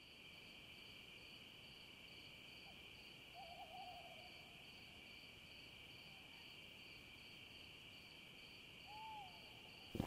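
Faint night ambience: a steady insect trill with a pulsing chirp over it, and two short animal calls, a warbling one about three seconds in and a single curved hoot-like call near the end. A sharp knock comes right at the very end.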